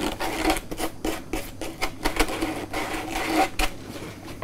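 Coarse sandpaper rubbed by hand around the cut edge of a hole-sawn hole in PVC pipe, in a rapid run of uneven scratchy strokes, taking the rough burrs off the cut.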